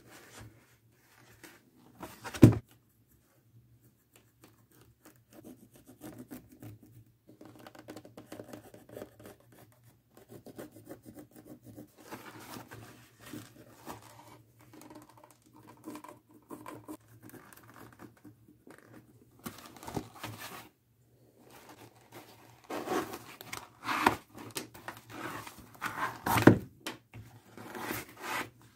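Stiff leather pieces and a wooden stirrup handled on a wooden workbench: leather rubbing and flexing, with a sharp knock about two seconds in and a run of knocks and rubbing near the end. A faint steady low hum runs underneath.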